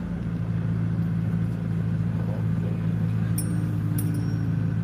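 Car engine and road noise heard from inside the cabin while driving, a steady low drone. Near the end come two light metallic jingles.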